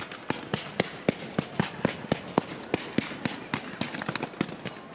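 Fireworks going off in quick succession: a dense, irregular string of sharp bangs and crackles, about four a second.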